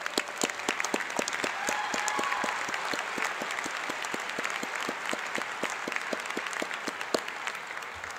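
Audience applauding: a dense stream of many people's claps that holds steady, then begins to fade near the end.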